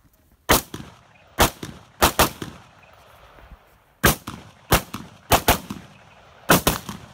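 Semi-automatic rifle firing a string of about ten sharp shots, several in quick pairs, each with a short echo. There are pauses between the groups as the shooter moves to a new firing position.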